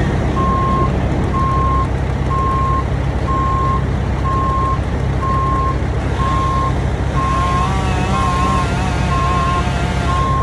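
Backup alarm beeping steadily, about once a second, over a loud engine running. A wavering tone joins the beeps about three-quarters of the way in.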